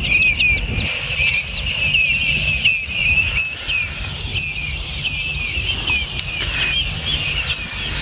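A dense chorus of hundreds of gamebird chicks peeping without pause, many short, high, falling chirps overlapping one another, over a low steady rumble.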